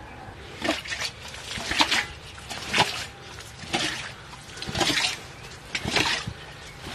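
Water splashing in a shallow muddy ditch, one short splash about every second, as water is scooped out of it.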